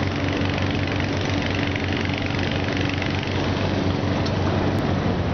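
A steady engine-like drone, with a low hum under a broad hiss, running evenly without a break.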